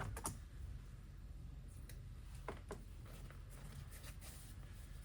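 A few faint, scattered clicks and taps from handling a magnetic insulated window cover against a van's rear door, its magnets being set against the door's metal.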